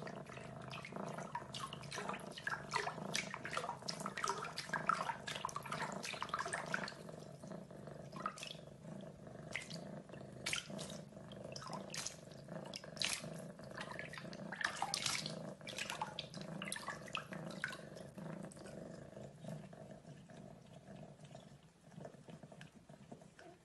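A cat pawing at shallow water in a bathroom sink, making many small, irregular splashes and patters over a steady low hum. The splashing is busiest in the first several seconds and again in the middle, and it thins out near the end.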